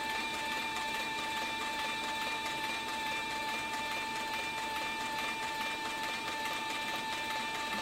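Cowboy CB4500 compound-feed walking-foot leather sewing machine running steadily as it stitches through thick saddle leather, with a constant motor whine.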